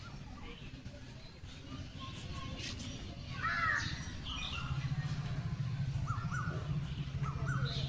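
Village birds calling: a cluster of arching calls about three and a half seconds in, then short chirps, over a steady low hum that strengthens about halfway through.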